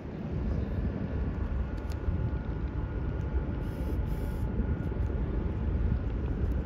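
Low, steady rumble of a passing diesel bulk-carrier's engines and machinery, with a few faint steady whining tones above it.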